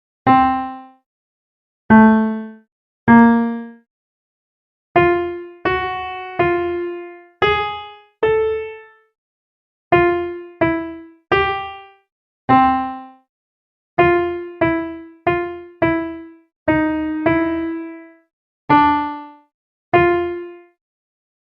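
Software keyboard in FL Studio Mobile with an electric-piano-like sound, playing a slow melody of about twenty single notes, each struck and dying away quickly into silence.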